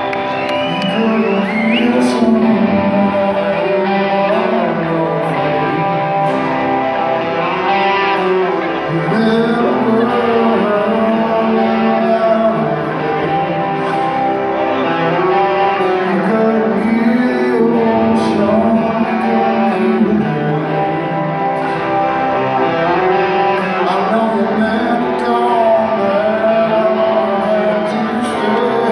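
Live rock band with a man singing at the microphone over electric guitar, recorded from within the audience. The music runs at a steady level throughout.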